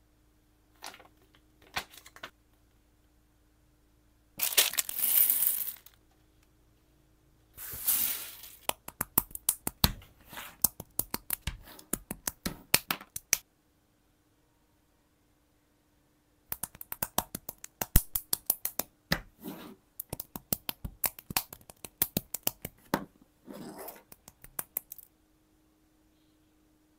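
Tiny plastic micro building bricks clicking as they are snapped together and handled, in quick irregular runs of sharp clicks with a pause in the middle. Before the clicking, a short crinkling rustle lasting about a second and a half.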